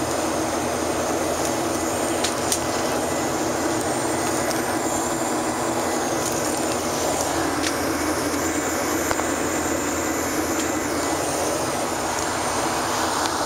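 Steady cabin noise inside a Boeing 737-800 climbing after take-off: the drone of its CFM56 turbofan engines mixed with rushing airflow, with a couple of faint clicks.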